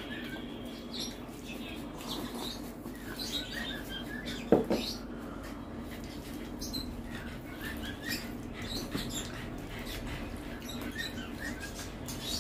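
Close-up eating sounds of people eating rice with their hands: wet chewing, lip smacks and soft squelches of fingers mixing rice, over a steady low hum. A single sharp knock about four and a half seconds in is the loudest sound.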